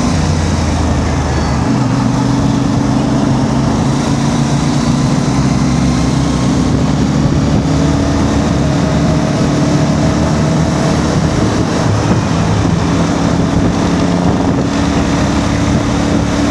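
CF Moto 450MT's parallel-twin engine running at low revs while the motorcycle crawls through slow traffic, its pitch shifting slightly as the throttle changes, with some wind noise on the microphone.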